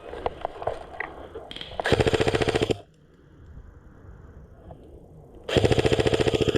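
Electric airsoft rifle firing on full auto: two bursts of rapid clicking shots, the first about a second long and the second starting near the end.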